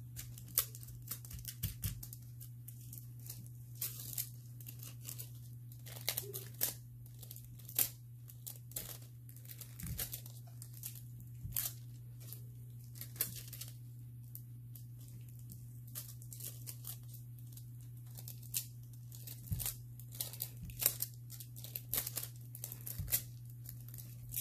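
Sheet of nail transfer foil crinkling and crackling in short irregular bursts as gloved fingers press and rub it down over cured gel dots to transfer the foil, over a steady low hum.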